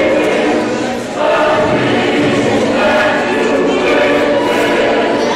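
A group of children singing together in unison, with a brief break between phrases about a second in.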